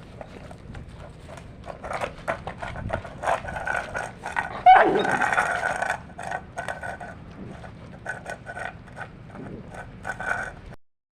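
Pet dogs eating and moving about, with many short clicks and scrapes, and one louder dog vocalisation falling in pitch a little before halfway.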